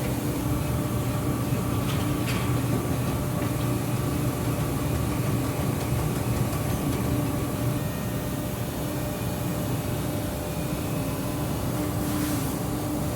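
A steady mechanical drone: a constant low hum with a few even tones, and a couple of faint clicks near the start and near the end.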